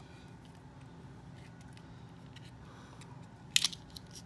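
Small plastic doll pieces and packaging being handled: a few faint ticks, then a brief sharp crackle of plastic about three and a half seconds in, over a faint steady low hum.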